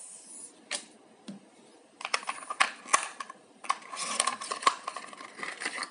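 Hands handling a cardboard gadget box and its paper contents: a couple of light clicks, then from about two seconds in, a busy run of rustling, scratching and small taps as fingers dig into the box's cardboard tray.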